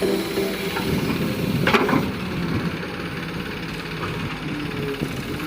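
Diesel engine of earthmoving machinery running steadily, with a single metallic clank about two seconds in.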